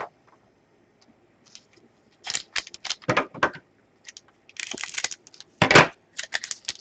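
Trading cards and pack wrappers being handled: short scratchy rustles and clicks in several bursts, the loudest about five and a half seconds in.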